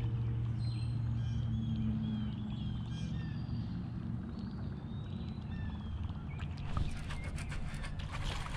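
Small birds chirping in short repeated calls over a steady low hum. About six and a half seconds in, a quick run of clicking begins as a fishing reel is cranked to bring in a topwater lure.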